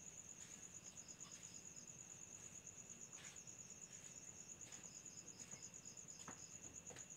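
Faint night chorus of crickets: one keeps up a steady, high, pulsing trill. A second, lower cricket chirps in two short runs, about a second in and again around five seconds in. A few faint ticks sound between them.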